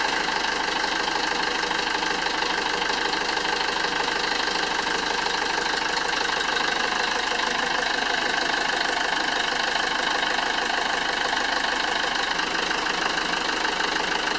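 Yanmar 4-cylinder 240 hp turbo diesel marine engine idling steadily, heard from directly above the open engine hatch.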